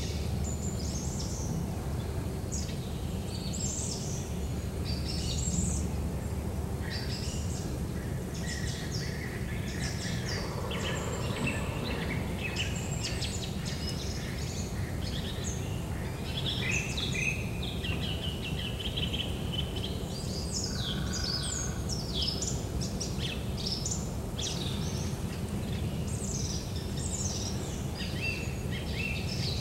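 Small birds chirping and trilling again and again in short high phrases, over a steady low background rumble.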